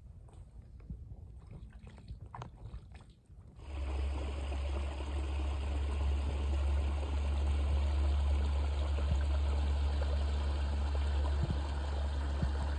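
Faint scattered steps and rustles, then, starting abruptly about three and a half seconds in, the steady rush of a small spring-fed creek spilling over a low drop, with a strong low rumble under it.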